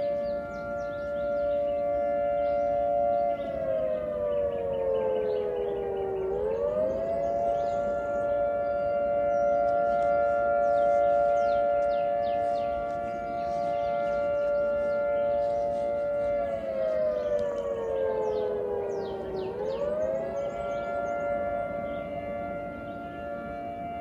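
Federal Signal 2T22 dual-tone outdoor warning siren sounding its two-note chord during a routine monthly test. The chord holds steady, then twice slides down in pitch for about three seconds and quickly climbs back, the two dips roughly thirteen seconds apart.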